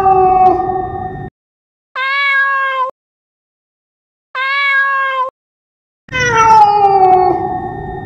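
Domestic cat meowing. A long meow that falls in pitch ends about a second in, two shorter, alike meows follow, and another long falling meow starts near the end, with dead silence between the calls.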